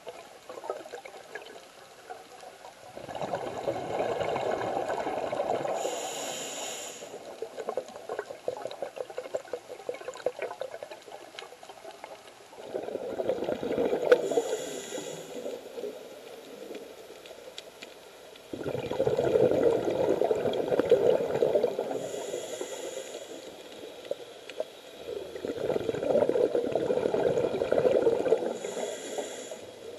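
Scuba diver breathing through a regulator underwater: four long rushes of exhaled bubbles, each with a brief high hiss of the regulator near its end, and quieter water noise between breaths.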